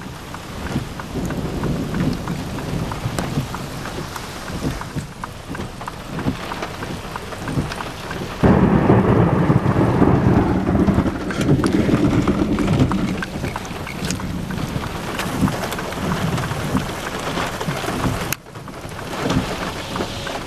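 Severe thunderstorm of the kind that spawns a tornado: rain and wind blowing on the camcorder microphone, with a low rumbling. It grows louder about eight seconds in and drops off suddenly near the end.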